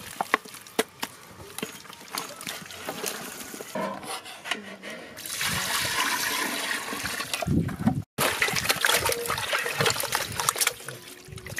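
Wet squelching and small clicks as raw lamb pieces are handled by hand, then water poured in a steady stream into a steel pot of meat for a few seconds, followed by splashing and sloshing as the meat is washed in the water.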